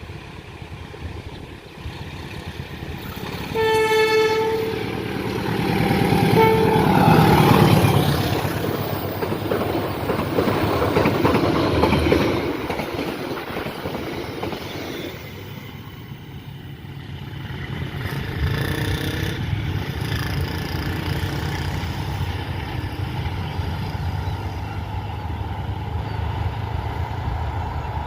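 Argo Wilis express train sounding its horn, one long blast about four seconds in and a short toot about two seconds later, then rushing past at speed with a loud rumble of wheels on the rails that peaks and fades by about fifteen seconds in. A steadier, lower noise follows.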